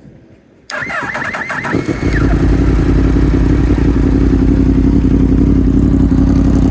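Yamaha MT-10's crossplane inline-four engine being started: the electric starter cranks for about a second, then the engine catches and settles into a steady, loud idle through its decat exhaust.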